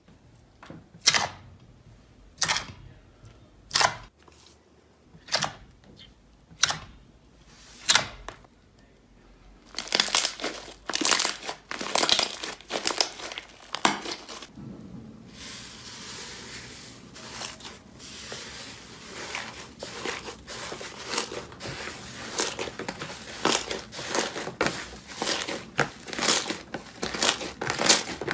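Slime being played with by hand: sharp pops about every second and a half at first, then from about ten seconds in a close run of crackling, crunching and tearing sounds.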